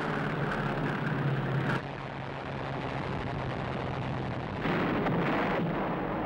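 Battle sound effects: a steady warplane engine drone over rumbling noise, cutting off abruptly about two seconds in, then rumbling noise with a louder blast of noise about a second before the end.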